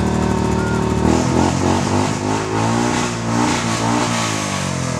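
Yamaha Grizzly 700 ATV's single-cylinder engine idling steadily, then from about a second in revved up and down several times as the quad pulls away.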